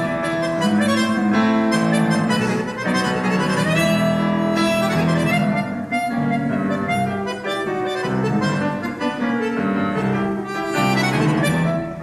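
Piano accordion and grand piano playing a duet live, the accordion's reeds carrying held chords and melody over the piano.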